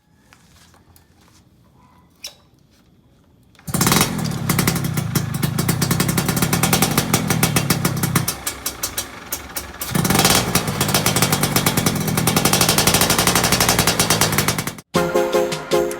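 Yamaha F1ZR two-stroke motorcycle engine revving through an AHM Malaysia aftermarket exhaust, coming in loud about four seconds in. The throttle is held open, eased off briefly around the middle, opened again, and the sound stops abruptly near the end.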